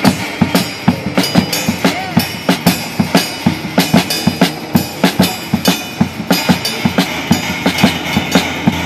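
Live band of a drum kit and cellos playing loudly, the drums and cymbal keeping a fast, steady beat of about four hits a second.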